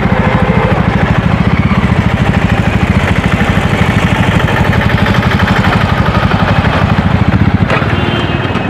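Jawa Classic's 293cc single-cylinder engine running at low revs under the rider, a steady exhaust beat as the bike rolls slowly, then the engine cuts out near the end.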